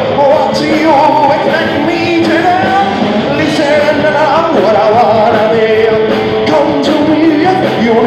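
Live punk rock band playing loud: electric guitar, bass guitar and drums, with a male singer shouting and singing into the microphone.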